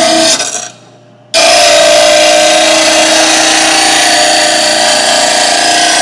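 Bench grinder wheel grinding the edge of a steel lawn mower blade to take out nicks: a steady grinding with a constant whine. The grinding breaks off for about a second near the start, then carries on steadily.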